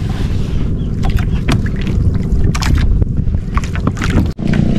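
Outrigger boat's engine running steadily, a low hum, with sharp clicks and rustles from the wet nylon crab net being hauled in over the side. The sound cuts out briefly near the end.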